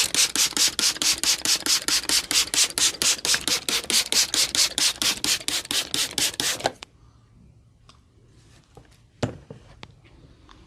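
Hands rubbing briskly back and forth over hair and scalp in a head massage, about five or six strokes a second, stopping abruptly about seven seconds in. A few faint clicks and one sharp click follow.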